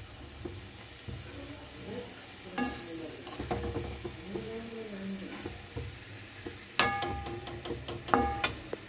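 Perforated metal ladle stirring frying potatoes, peas and spinach in a metal kadai. The ladle scrapes the pan with a few sharp metallic clanks that ring briefly, one about three seconds in and several near the end.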